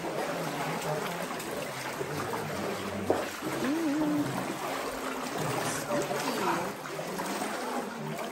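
Indistinct voices over a steady hiss of background noise, with a single sharp click about three seconds in.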